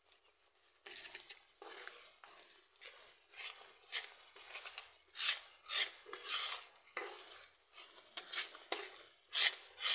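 A spoon scraping and stirring around a pan of cooking jaggery and ginger mixture, in repeated strokes about one or two a second, starting about a second in.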